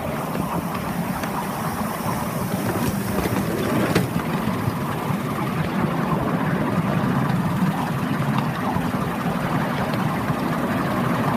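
Miniature railway train running along its track, a steady rumble of the locomotive and wheels, with one sharp click about four seconds in.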